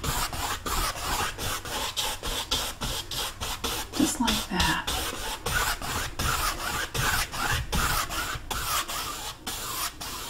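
Wide bristle paint brush scrubbing across a stretched canvas in quick criss-cross strokes, several a second, blending blue paint into a wet coat of liquid white. Each stroke is a short dry scratch.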